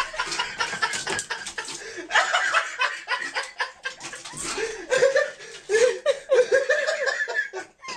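People laughing in short repeated bursts, loudest in the second half, over scattered clicks and rattles of objects being knocked about in a crowded cabinet as a cat rummages through it.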